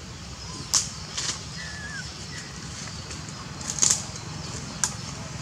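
Four short rustles of leaves and twigs as a monkey shifts about among the branches, two close together about a second in and two more near the end.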